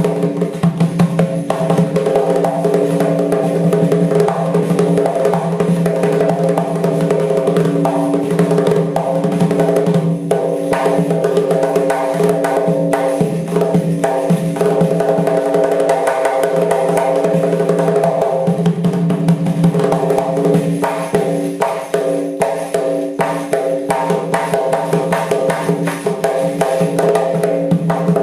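Doira frame drum played in a fast, dense rhythm of sharp strokes, over a steady held tone that carries on underneath.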